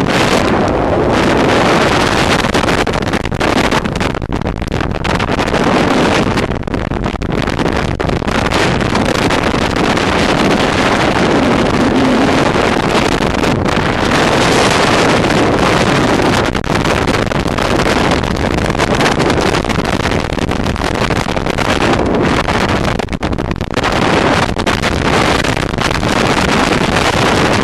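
Waterfall: a loud, steady rush of falling water, with no pitch or rhythm.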